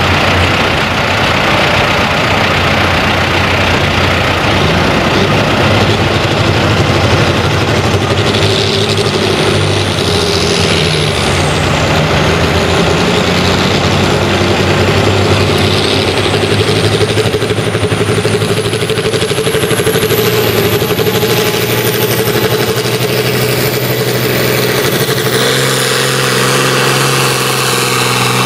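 International Harvester 1466 tractor's turbocharged six-cylinder diesel running hard under full load while pulling a weight-transfer sled. It is loud and steady, with a high whine that climbs in pitch through the second half.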